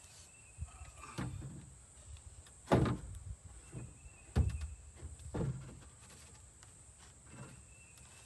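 Plywood panel knocking and scraping against the wooden framing of an outhouse as it is fitted into place, with several separate thuds, the loudest about three seconds and four and a half seconds in.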